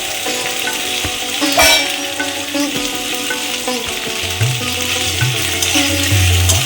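Onion, ginger-garlic paste, green chillies, cashews, raisins and tomato sizzling in hot oil in a kadai as they are stirred, with a sharp clatter about one and a half seconds in. Background music plays underneath, with a bass line coming in after about four seconds.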